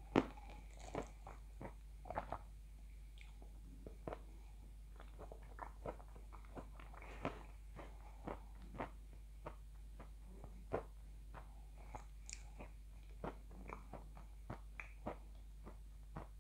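A person chewing food with lips closed, close to a clip-on microphone: a string of short, irregular mouth clicks, about one or two a second, the loudest just after the start.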